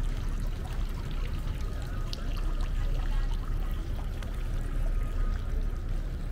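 Steady rushing of running water, continuous and even throughout.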